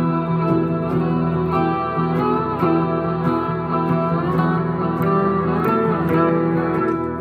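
Guitar playing an instrumental passage, with notes that glide up and down over a held low note.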